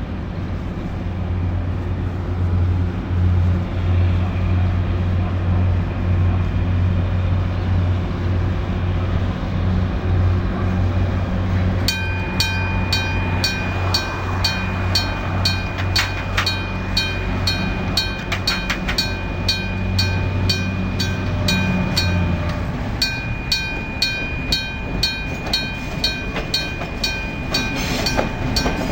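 A steady low hum from a freight train's locomotive running near the crossing fades out about two-thirds of the way through. About twelve seconds in, the level crossing's electric bell starts ringing with rapid repeated strikes, and it keeps ringing to the end.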